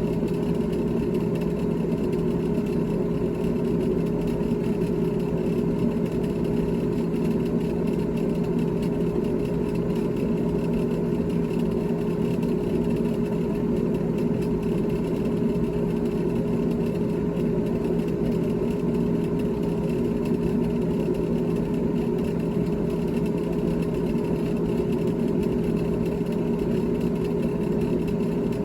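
GE GTH18XCTZRBB refrigerator running with a steady, unchanging hum.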